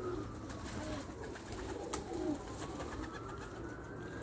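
Racing pigeons cooing, several low coos overlapping, with one sharp click about two seconds in.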